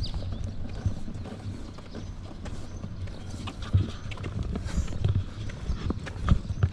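Footsteps on a paved sidewalk, heard as irregular low knocks and light clicks over a steady low rumble, with a few stronger thumps near the end as the handheld camera is swung upward.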